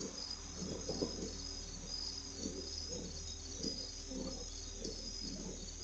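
Crickets chirping steadily in the night air, picked up by a doorbell camera's microphone over a steady low electrical hum. Irregular muffled low sounds come and go beneath them.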